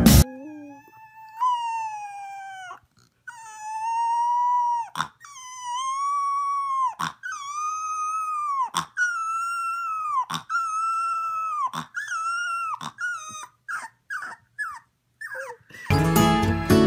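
A boxer puppy howling: about seven drawn-out howls of one to two seconds each, each dropping in pitch at its end. These break into a run of short, high yips near the end.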